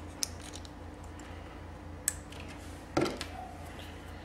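Crimped terminals being pushed into a large HEI-style distributor connector housing, giving a few small, sharp plastic clicks as they lock in place, with light handling. The loudest click comes about three seconds in.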